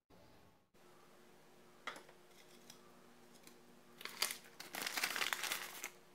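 Plastic bag of shredded cheese crinkling as it is handled, with a short rustle about two seconds in and louder, longer crinkling in the last two seconds.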